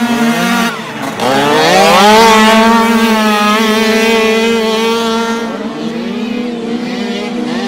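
Small 49cc two-stroke dirt bike engines revving hard as racers pass. About a second in, one engine climbs steeply in pitch as it accelerates, over another engine holding a steady high rev. Near the end, a pitch drop as a rider backs off.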